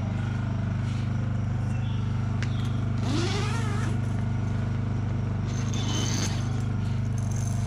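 Steady low drone of a vehicle engine running, with a brief rising, wavering sound about three seconds in.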